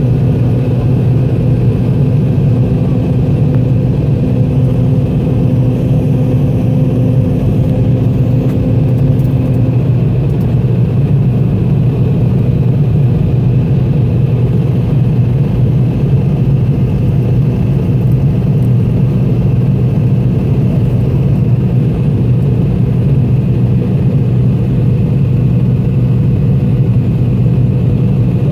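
Cabin noise of a McDonnell Douglas MD-88 climbing after takeoff: its rear-mounted Pratt & Whitney JT8D turbofans and airflow make a steady low drone. A steady tone over the drone stops about ten seconds in.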